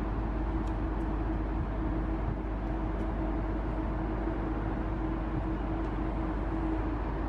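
Steady hum and rumble on the open deck of a large car ferry: the ship's machinery drones with one steady mid-pitched tone, under a constant low rumble of wind on the microphone.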